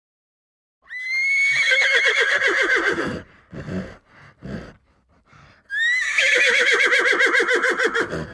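A horse whinnying twice, each neigh opening with a rising squeal and then quavering rapidly, with a few short breathy sounds between the two calls.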